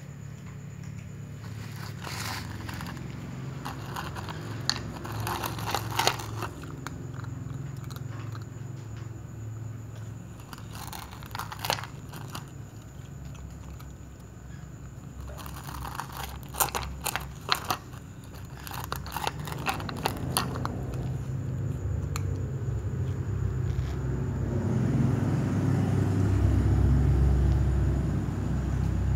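A cat crunching dry food pieces in several bouts of quick crunches with pauses between. A low rumble swells near the end.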